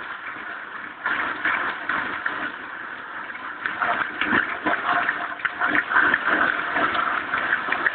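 Large crowd cheering and applauding. The noise jumps up about a second in and grows louder from about halfway through.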